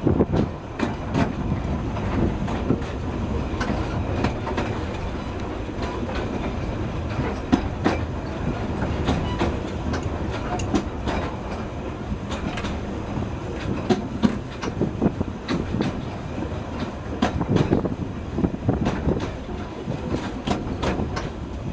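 Narrow-gauge (2 ft 3 in) railway carriage running along the line: a steady rumble of wheels on rail, with frequent sharp clicks and knocks as the wheels cross rail joints.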